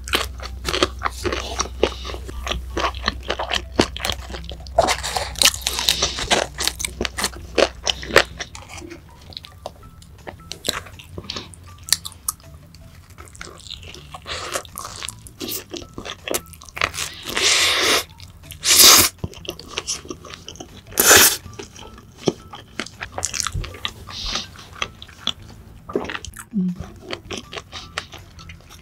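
Close-miked eating of crunchy food: repeated crisp bites and chewing crunches, with several louder crunches in the second half.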